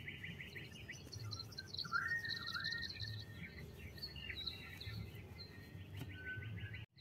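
Birds chirping faintly in the background: short chirps and warbling notes, with a rapid trill near the end.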